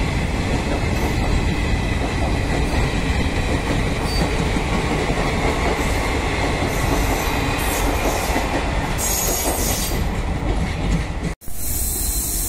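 Indian Railways passenger coaches rolling past close by at speed: a continuous loud rumble and clatter of wheels on rail with a faint high steady whine. The sound drops out abruptly for an instant near the end at a cut, then gives way to a steady hiss.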